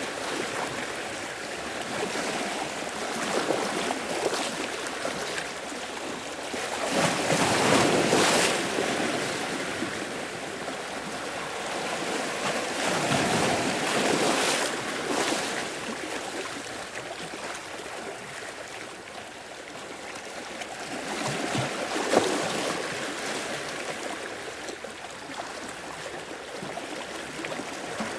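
Ocean waves washing in and breaking against a rocky cave shore, swelling and ebbing every few seconds, with a sharper splash about two-thirds of the way through.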